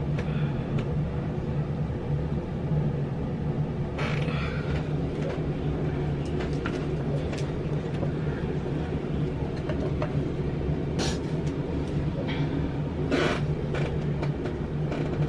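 Steady low hum of a bathroom exhaust fan, with a few brief clicks and rustles from handling near the microphone.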